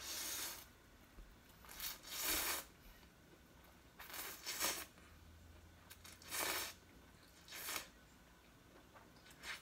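A person slurping Korean instant ramen noodles from a bowl: about seven short slurps, one to two seconds apart.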